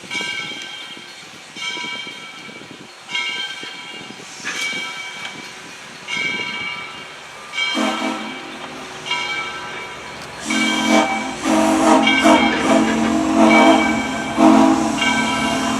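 Southern 630, a 2-8-0 steam locomotive: its bell rings steadily, about one stroke every second and a half. A short whistle toot sounds about eight seconds in, then a long whistle blast starts a couple of seconds later and is the loudest sound.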